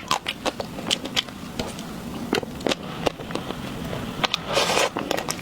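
Close-miked eating of chocolate ice cream: irregular sharp mouth clicks and chewing smacks, with a short burst of hissing noise about four and a half seconds in.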